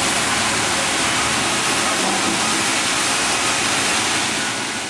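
Steady noise of sawmill machinery running, an even rushing sound with a faint steady hum under it.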